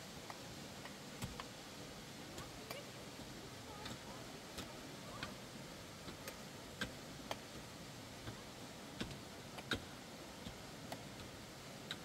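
Irregular sharp clicks and taps, about one or two a second, over a steady faint hiss.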